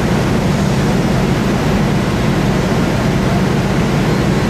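Steady, loud fireground noise at a burning titanium scrap warehouse: a low rumble with a rushing hiss over it, from the burning wreckage and running fire-engine pumps, with no distinct pops or bangs.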